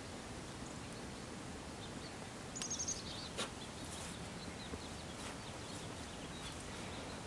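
Steady low outdoor background noise, with a bird giving a quick run of about five high chirps about two and a half seconds in, and a single sharp click just after.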